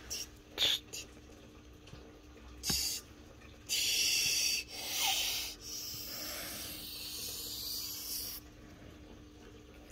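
Plush toys being rummaged through in a fabric storage bin: rustling and brushing of fabric and stuffed toys, with a few light knocks in the first three seconds and the loudest rustling about four seconds in.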